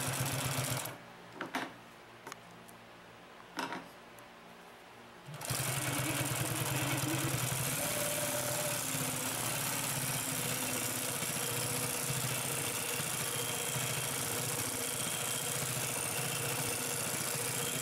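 Consew P2339RB double-needle walking-foot industrial sewing machine stitching through a thick multi-layer seam. It runs for under a second and stops, with a few short clicks in the pause. About five seconds in it starts again and runs steadily.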